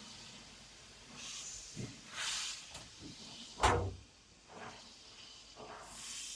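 Soft hissing swishes and scattered knocks, with one sharp, much louder knock about three and a half seconds in.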